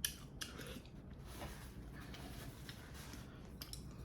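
Faint eating sounds: someone chewing food, with a few small clicks near the start and again near the end.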